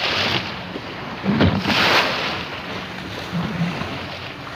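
Wind buffeting the microphone and sea water rushing and splashing around a boat at sea, swelling to a louder rush about a second and a half in.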